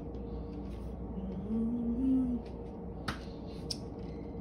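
Quiet room tone with a steady hum, and a brief hummed note from a person that rises slightly in pitch about a second and a half in. A couple of faint clicks follow near the end.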